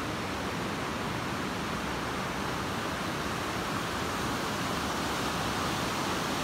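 Glacier-fed snowmelt river in full flow, rushing water heard as a steady, even noise with no breaks.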